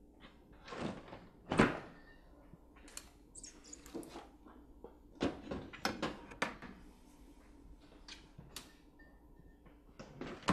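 Refrigerator door opened with a knock about a second and a half in, followed by a string of light knocks and clinks as things on the shelves are handled, and the door pushed shut near the end, all over a low steady hum.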